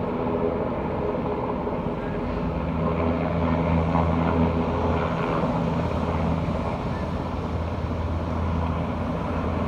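MRH-90 Taipan military helicopter running with a steady low drone from its rotors and twin turbine engines, swelling slightly a few seconds in.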